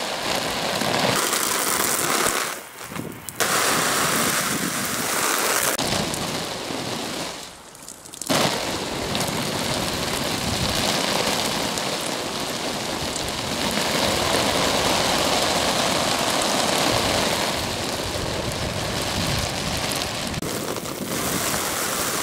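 Garden-hose spray spattering onto the fabric flysheet of a Quechua MH100 dome tent in a steady rain-like hiss. The spray briefly falls away twice, about two and a half seconds in and again around seven to eight seconds in.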